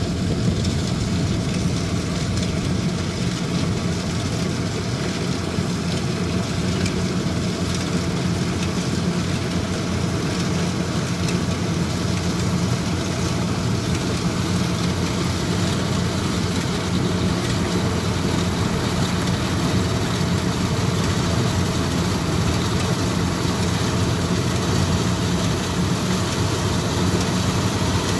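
Kubota rice combine harvester running steadily as it cuts through the standing rice, its diesel engine giving a continuous low drone at an even level.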